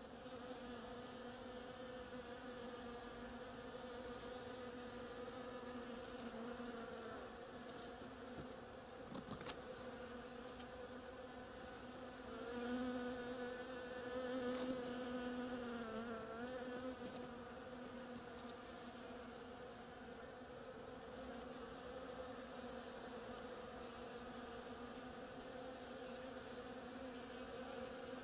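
Bees buzzing in flight as they forage on the creeper's flowers: a steady drone that grows louder for a few seconds in the middle as one flies close to the microphone, its pitch dipping slightly as it moves off.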